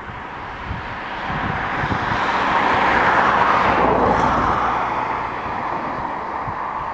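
Aircraft passing close by: its noise swells to a peak about three seconds in, then fades with the pitch dropping.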